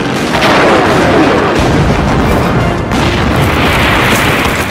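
Film battle sound effects: explosions with a long rumbling tail, a falling whine just after the first blast, over an action-movie music score.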